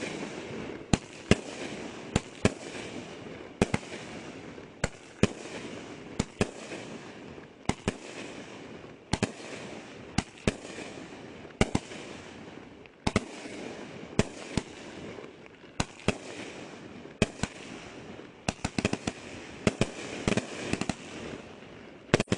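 Boom Wow Fireworks' Pyro Puddin firework cake firing shot after shot: a long string of sharp bangs, about one or two a second, with a steady rush of noise between them. The shots come quicker near the end.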